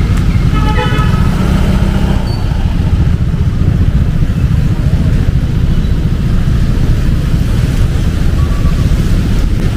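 Busy city street traffic: a steady rumble of passing cars and motorcycles, heavy in the low end.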